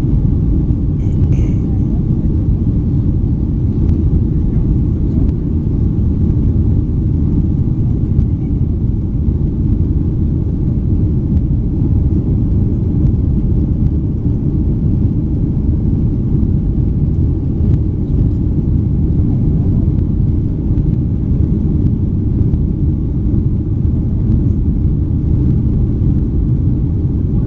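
Steady low rumble inside the cabin of a Boeing 737-800 climbing after takeoff: the noise of its CFM56 turbofan engines and the airflow, heard from a window seat over the wing.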